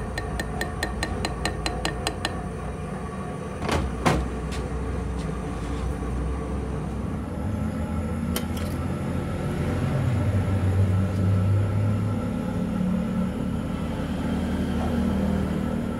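Quick light metal taps, about four a second, for the first two seconds, then two sharp knocks about four seconds in. After that a steady low hum and rumble, louder in the second half.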